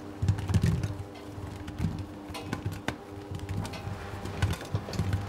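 Pigeons cooing in soft, repeated low phrases over a steady faint hum, with scattered light clicks.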